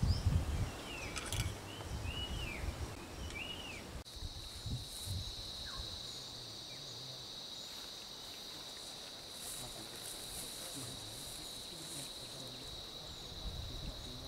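Short bird chirps over low thumps and rustling. About four seconds in, the sound changes abruptly to a steady, high-pitched insect drone, such as crickets or cicadas, with a few faint chirps over it.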